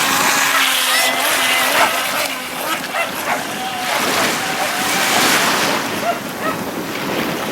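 Sea surf washing with wind buffeting the microphone, a steady rushing noise. Faint thin tones waver in pitch through it.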